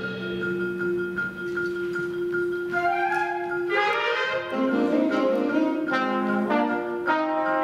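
School concert band playing. Low notes are held while a high note repeats evenly, then more of the band comes in about four seconds in with fuller, moving chords.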